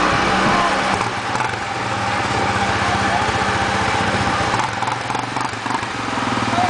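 Vehicle engine running steadily at a Jeep mud recovery with a backhoe. The level dips slightly about five seconds in.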